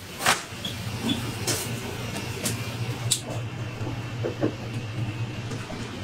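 Bakery workroom sounds: a steady low hum with scattered light knocks and clicks while dough is handled on steel trays.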